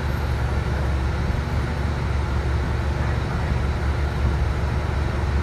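Cabin noise of a 2019 Nova Bus LFS CNG city bus under way: a steady low rumble from its compressed-natural-gas engine, mixed with road noise.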